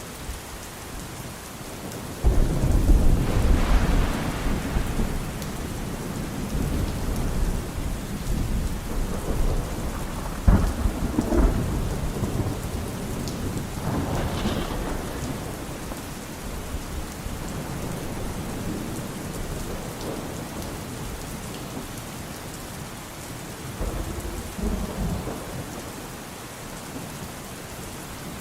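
Thunderstorm: steady rain with thunder. A loud rumble breaks out a couple of seconds in and rolls on for over ten seconds, surging again about ten seconds in, and a weaker rumble comes near the end.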